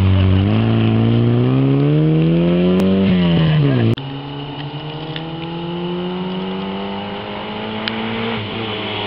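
Rally car's four-cylinder engine accelerating hard out of a hairpin, revs climbing and then dropping about three seconds in. After a sudden cut, a second rally car is heard approaching from farther off, its revs rising steadily and then falling near the end as it backs off for the bend.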